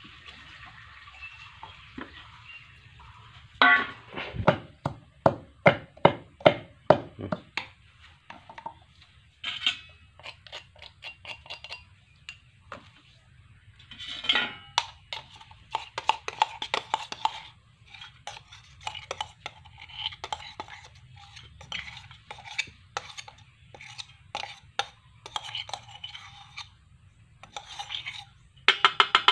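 Steel plate and steel tumbler clinking and knocking as they are handled on a concrete floor, with a quick run of a dozen or so sharp knocks starting about four seconds in, then scattered clinks.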